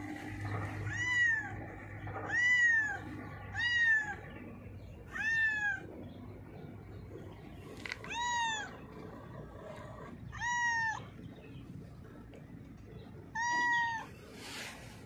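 Domestic cat (a calico) meowing repeatedly: seven short meows, one to three seconds apart, each rising then falling in pitch.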